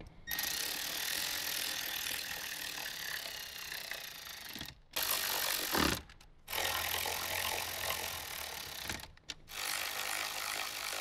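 Cordless electric ratchet running in four runs, the first and third the longest, with short pauses between them, as it drives screws home.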